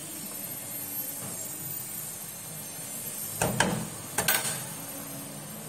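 Milk masala curry bubbling at a boil in a nonstick pan, a steady hiss, with a few sharp knocks and clatters of kitchen utensils against the pan about three and a half and four and a quarter seconds in.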